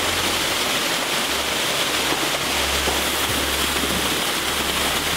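Waterfall pouring down a rock gorge into a plunge pool: a steady, loud rush of falling and splashing water.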